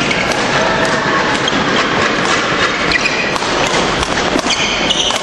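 Badminton rally: racket strikes on the shuttlecock and sharp squeaks of court shoes on the wooden floor, over a steady murmur of the watching crowd, with squeaks clustering near the end.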